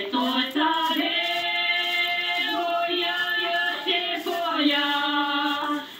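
Music with sung voices, choir-like, holding long notes one after another, with a short break near the end.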